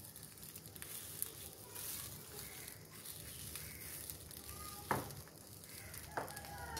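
Faint sizzling and fine crackling of a thin egg-and-vegetable batter (cabbage, carrot, onion) as it is poured and spread on a hot nonstick tawa. Two sharp clicks come about five and six seconds in.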